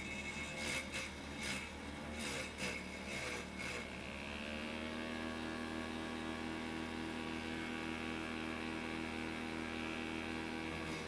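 Homemade vegetable chopper driven by a water-pump motor with a grass-cutter blade, running with irregular knocks for the first few seconds; about four seconds in its pitch rises and it settles into a steady hum.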